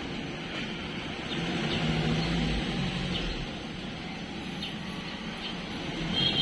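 Steady low motor-like hum, heavier for a couple of seconds in the middle, with faint soft ticks of a cat licking its fur.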